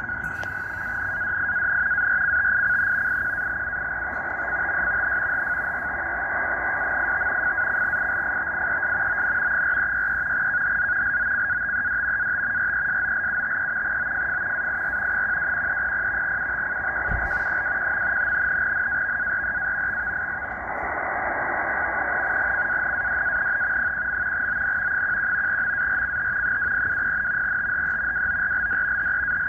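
NAVTEX marine broadcast from Iqaluit Coast Guard Radio (VFF), received in upper sideband on a Tecsun H-501X portable shortwave receiver and heard through its speaker: a continuous two-tone frequency-shift data signal, a steady high-pitched warble over shortwave static.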